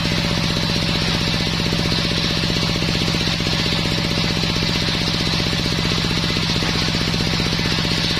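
Homemade circular sawmill machine running steadily: a rapid, even throbbing from its drive, with a hiss from the spinning blade above it.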